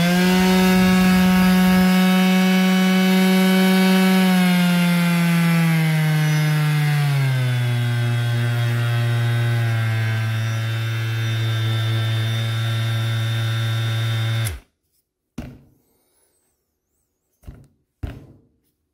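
DeWalt 20V cordless quarter-sheet sander running with a steady motor whine. Its variable speed is turned down in steps over a few seconds, so the pitch drops to a lower steady hum. The motor cuts off suddenly after about fourteen seconds, followed by a few light knocks.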